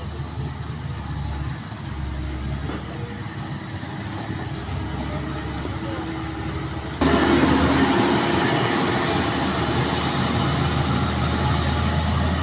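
Engine running steadily amid street noise. About seven seconds in, the sound cuts abruptly to a louder, noisier stretch of engine and machinery noise.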